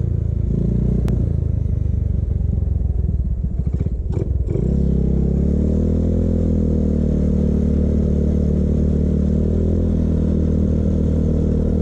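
Motorcycle engine running under way. About four seconds in the engine note breaks off briefly, then rises and settles into a steady run.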